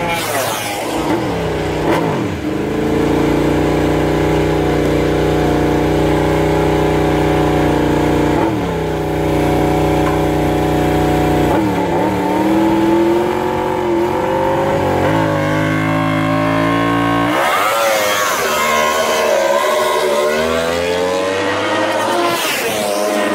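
Yamaha YZR-M1 MotoGP bike's inline-four engine idling, blipped several times with quick rises and falls in revs. About three-quarters of the way through, the sound changes to an engine revving up and down in repeated rising and falling sweeps.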